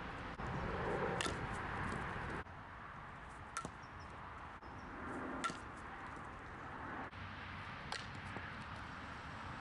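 A softball bat striking pitched balls: four sharp hits, about one every two seconds, over a steady outdoor hiss.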